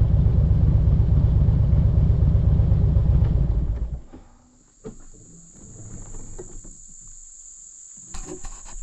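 Loud low rumble of wind and road noise from riding, which cuts off about four seconds in. Then insects buzz steadily at a high pitch, with a few knocks near the end.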